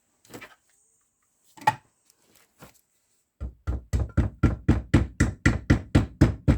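Two single knocks, then from about halfway a fast, even run of knocks, about four blows a second, as a part is tapped home while reassembling a Zündapp KS 600 motorcycle gearbox.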